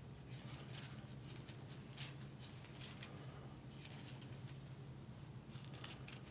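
Thin Bible pages being turned and leafed through by hand: faint, irregular papery crackles and rustles, several a second, over a steady low hum.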